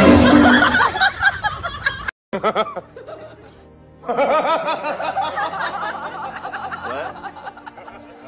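Laughter over light background music: a burst of a woman's laughter in the first two seconds, a sudden cut, then more laughter from about four seconds in.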